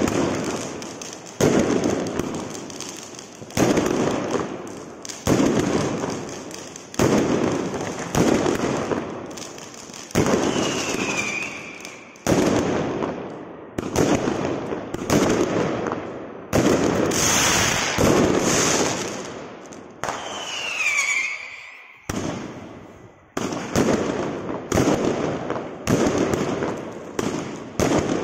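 Consumer compound firework cake (Vuurwerktotaal Volt! The Strobe) firing shot after shot, each a sharp bang followed by a noisy tail of strobe stars that fades over about a second. The shots come roughly every second and a half, quickening after a short pause near the end. Two brief falling whistles are heard along the way.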